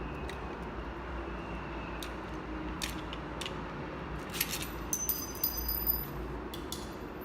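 Metal parts of a door lock being handled: scattered sharp clicks and light metallic clinks, most of them about four to six seconds in, a few with a brief high ring.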